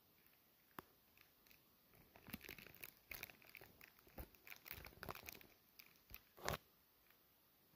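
Fabric rustling and crinkling against the phone, heard as irregular bursts of rustle and small clicks from about two seconds in, with a single click before them and a louder rub near the end.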